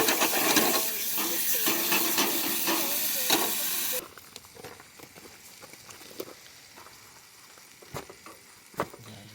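A loud steady hiss that cuts off abruptly about four seconds in, followed by a few faint clicks.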